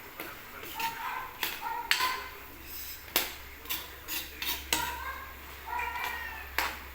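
Metal utensil knocking and clinking against a cooking pot, a string of sharp irregular strikes, with a few short high whines between them.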